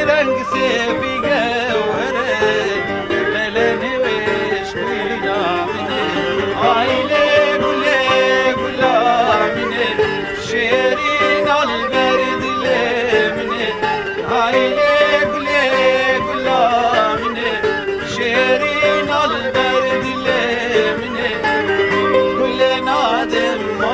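A Kurdish folk song performed live: a man sings an ornamented, wavering melody into a microphone over long-necked saz lutes played steadily.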